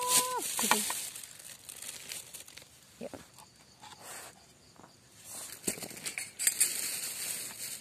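Close rustling and crinkling with scattered light clicks and knocks of a knife and wooden cutting board as cooking ingredients are handled, louder again in the last few seconds. A voice rises briefly at the very start.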